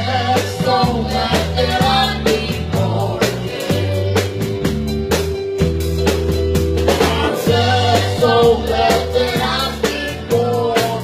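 Amateur band playing a song live: drum kit, electric guitar and deep bass notes, with a voice singing through a microphone.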